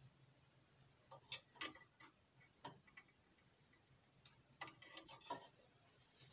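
Faint, scattered clicks and taps of a small metal tool against a CO2 laser's mirror mount, as the mirror holder is worked at by hand to loosen it.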